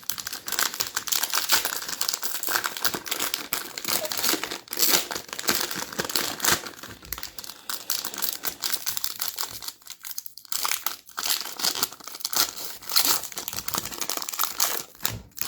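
Plastic wrapper of a basketball trading card value pack being torn open and crumpled, with continuous crinkling and crackling and a short lull about ten seconds in.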